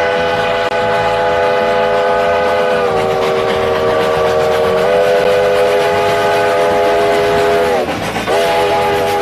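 Train chime whistle, several notes sounding together, blown in one long blast. Its chord sags a little in pitch for about two seconds in the middle. Near the end it slides down and breaks off, then sounds again half a second later.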